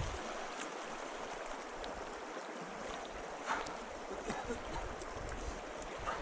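Steady rush of flowing stream water, with a few faint clicks and knocks.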